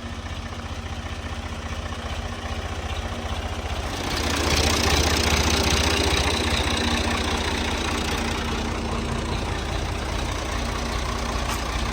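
Tractor engine running at a steady idle, growing louder and brighter about four seconds in, then easing back a little.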